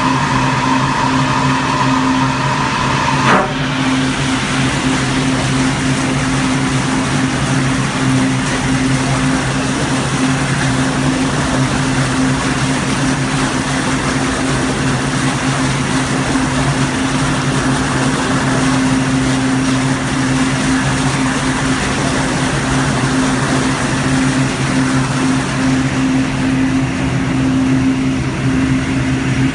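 Steady machine hum and the roar of water being churned by the agitator inside a stainless food-processing cook vessel. A high whine in the first seconds cuts off with a sharp click about three seconds in.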